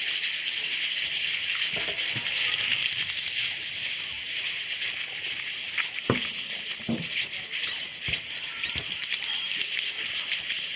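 Recorded roosting chorus of edible-nest swiftlets (suara inap walet): many birds twittering in a dense, continuous mass of short high chirps, the call swiftlet farmers play to draw swiftlets to roost in a swiftlet house. A couple of faint low knocks come about six and seven seconds in.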